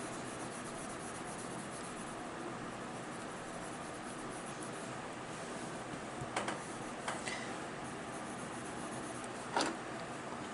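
Prismacolor colored pencil rubbing on paper in steady shading strokes, with a few brief clicks in the second half.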